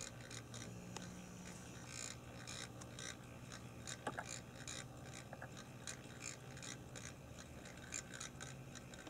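HO-scale brass model steam locomotive (Canadian Pacific 4-4-4 Jubilee) running: faint, steady whir of its small electric motor and gears, with many small irregular clicks from the wheels and rods on the track.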